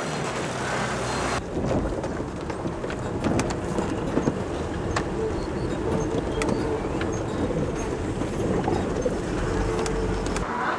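Heard from inside a minibus driving on an unpaved, bumpy dirt road: the engine drones steadily while the body rattles and knocks over the ruts. Before this, for about the first second and a half, there is outdoor street and traffic noise.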